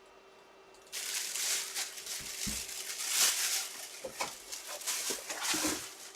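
Plastic packaging crinkling and rustling in irregular handling bursts, starting about a second in, with a few soft knocks.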